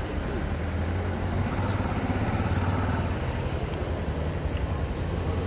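Car and motorcycle engines idling and creeping in slow city-street traffic close by, a steady low hum under general street noise.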